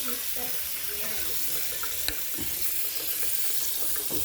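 Faucet running steadily into a sink, with a single sharp click about two seconds in.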